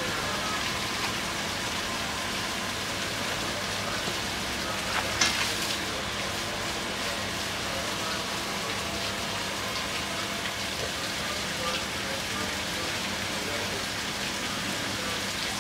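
Seafood-market ambience: a steady watery hiss like rain or running water, with faint voices. About five seconds in comes one sharp knock, a cleaver striking the wooden chopping block.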